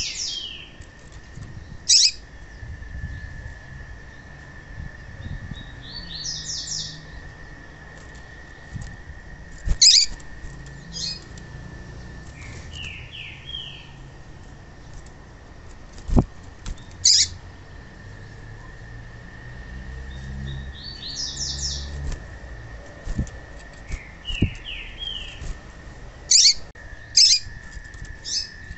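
Female double-collared seedeater (papa-capim) calling: high calls every few seconds. Some are quick runs of short notes climbing in pitch, others single sharp chirps, a pair of them close together near the end.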